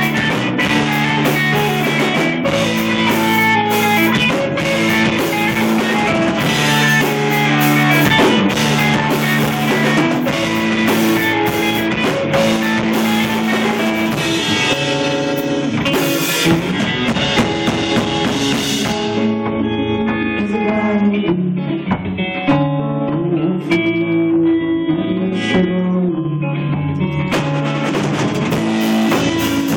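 Live rock band playing loudly on electric bass, guitar and drum kit. About two-thirds of the way through, the cymbals and high end drop away for a sparser passage, then come back near the end.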